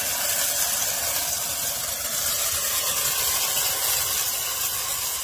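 Steady sizzling hiss from toasted rice and asparagus cooking in a hot stainless steel pot as vegetable broth goes in: the risotto starting to absorb its first broth.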